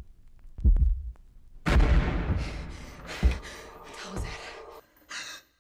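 Horror-film soundtrack: a deep heartbeat-like thud, then about one and a half seconds in a loud crashing hit that fades slowly. A second thud and a short burst follow near the end before the sound cuts out.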